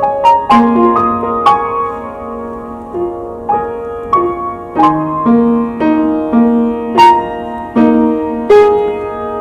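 Piano played slowly: a gentle melody of single struck notes over lower accompanying notes, about one or two notes a second, each ringing and fading into the next.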